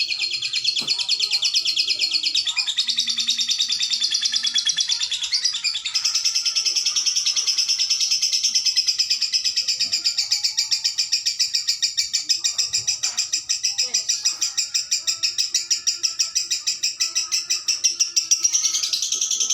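Lovebird singing one long, unbroken, rapid high-pitched chattering trill, the marathon song that Indonesian keepers call ngekek, shifting slightly in pitch a few times.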